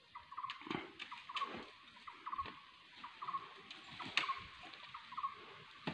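Faint chirping from a small animal, short calls repeated about twice a second, with scattered light taps and rustles.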